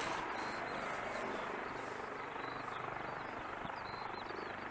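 AgustaWestland AW149 twin-turbine helicopter taxiing with its rotors turning: a steady rush of turbine and rotor noise that eases slightly. Short high bird chirps sound over it.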